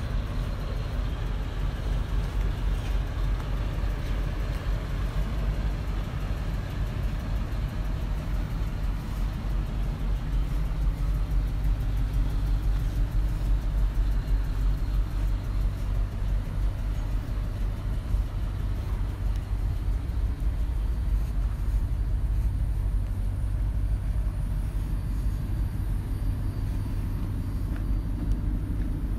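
A 2007 Chevrolet C4500 medium-duty truck's engine idling steadily, a low rumble with an even pulse.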